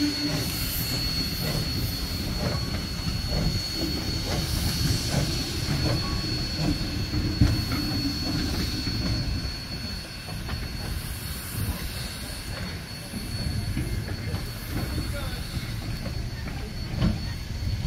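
Steam-hauled train of gondola cars rolling away over the track: a low rumble with many wheel clicks over rail joints and a single sharper clunk about seven seconds in, over a steady high-pitched whine.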